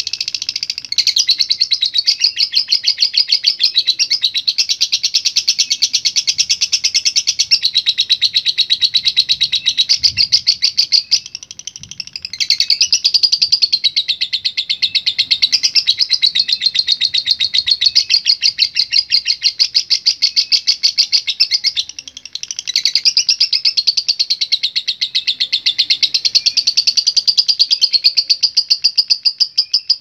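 Fischer's lovebird giving its long 'ngekek' chatter: a very fast, continuous run of high chirps, breaking off briefly about 11 seconds in and again about 22 seconds in.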